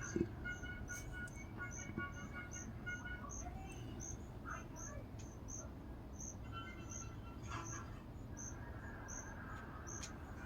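Crickets chirping steadily, about two to three high-pitched chirps a second, faint, with other short pitched insect or bird calls now and then.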